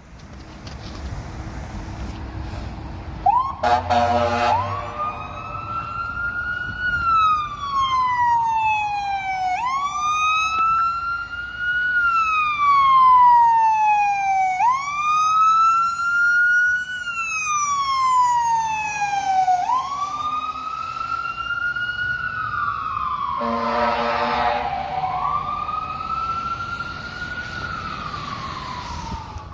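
Fire truck siren in a slow wail, climbing quickly and sliding down again about every five seconds, starting about three seconds in. An air horn blasts at the start of the siren and again near the end.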